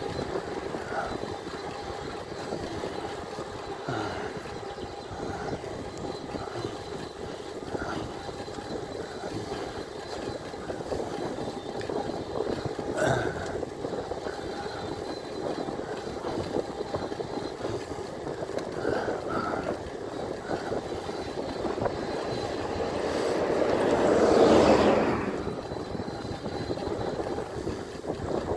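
Steady rushing noise of an e-bike ride on a tarmac road: wind and tyre noise. Near the end a louder rush builds over a few seconds and fades away.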